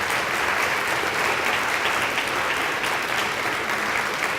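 Audience applauding: many people clapping steadily at the end of a lecture.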